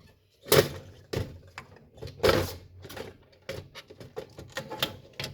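Clattering and knocking of parts being handled and moved, irregular, with a sharp knock about half a second in and a longer scrape-like clatter about two seconds in.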